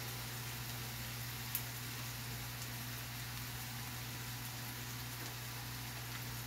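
Minced ginger and garlic sizzling steadily in hot oil in a wok, over a low steady hum, with one small pop about a second and a half in.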